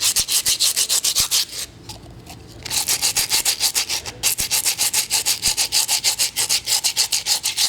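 Sandpaper rubbed by hand over a dry clay pot in quick back-and-forth scraping strokes, smoothing the surface. The strokes pause for about a second near two seconds in, then resume.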